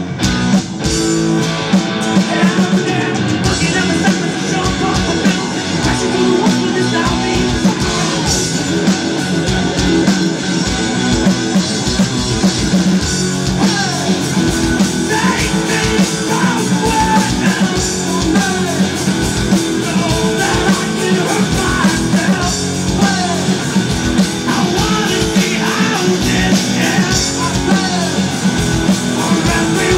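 Rock band playing live: electric guitars, bass guitar and drum kit, loud and dense throughout.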